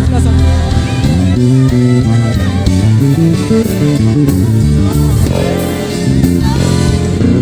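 Live gospel worship band playing an instrumental passage, led by a bass guitar playing a moving line of stepping notes under sustained chords.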